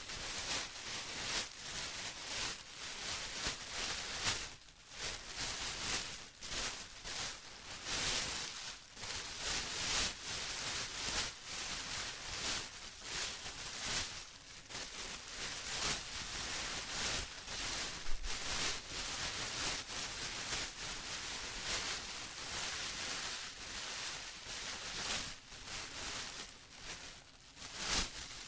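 Plastic being rustled and crinkled by hand: a continuous, uneven crackling rustle that swells and eases every second or so.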